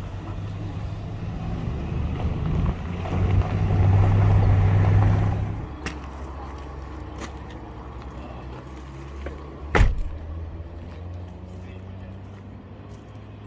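A motor vehicle engine running with a low, steady hum. It swells louder a few seconds in, then drops back abruptly before the middle. A single sharp knock comes about ten seconds in.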